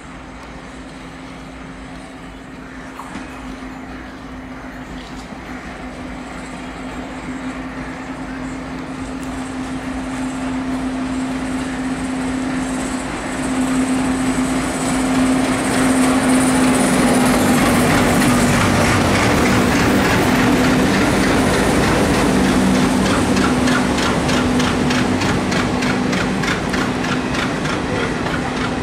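WDP3A diesel locomotive with its ALCO engine chugging, growing steadily louder as it approaches slowly, then passing. From about two-thirds of the way in, the coaches follow with an even clickety-clack of wheels over rail joints.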